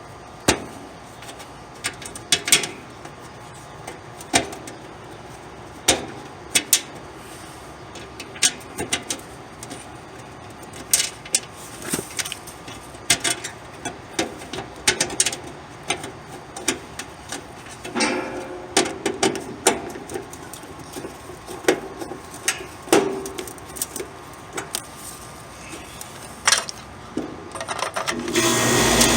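Scattered clicks, taps and knocks of hands and tools working on an AC condenser's wiring and capacitor. About a second before the end the condenser unit starts up with a steady, louder hum.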